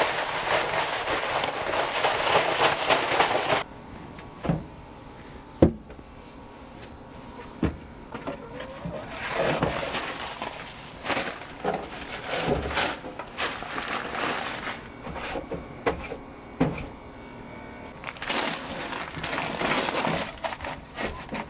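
Dry coop bedding and straw-like nest pads rustling and scraping as they are handled and pushed into metal nest boxes. A few sharp knocks against the wooden coop and the boxes come in between. The loudest rustling is in the first few seconds and cuts off suddenly.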